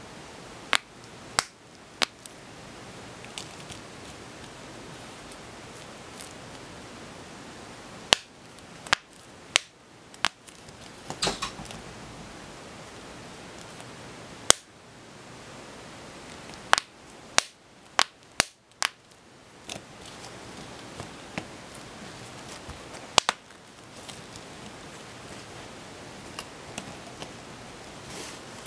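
Chocolate-bar squishy toys cracking as they are bent between the fingers: about twenty sharp, separate snaps at irregular intervals, with a quick cluster near the middle, over a steady hiss.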